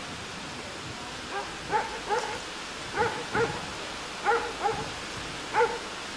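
Small dogs yapping: about eight short, high barks, some coming in quick pairs, over a steady background hiss.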